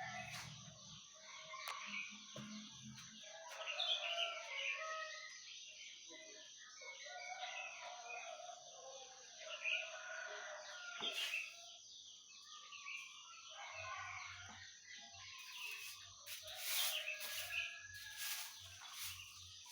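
Many small birds chirping and calling over one another, with chickens and a rooster crowing among them. A few sharp clicks come near the end.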